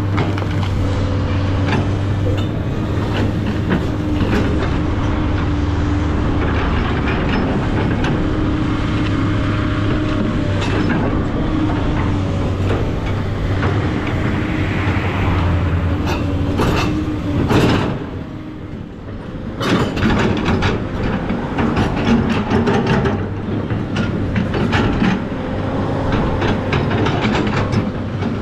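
SANY SY215C hydraulic excavator's diesel engine running steadily under working load, with repeated metallic clanks and rattles from the machine as it works; the engine eases off briefly about two-thirds of the way through before picking up again.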